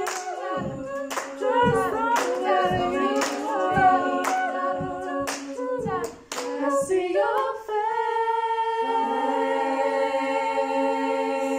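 Women's a cappella group singing in harmony, with hand claps and low thumps keeping a steady beat. About seven seconds in the rhythm stops and the voices hold a long final chord.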